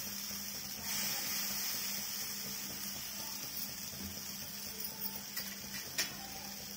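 Mini dosa batter sizzling in oil on a hot cast-iron tawa, a steady hiss, with one sharp tick about six seconds in.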